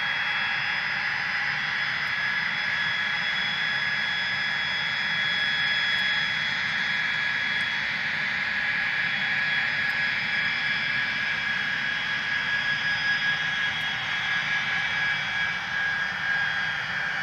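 Boeing 707's jet engines running at taxi power as the airliner rolls slowly along the taxiway: a steady whine made of several high tones over a broad rush.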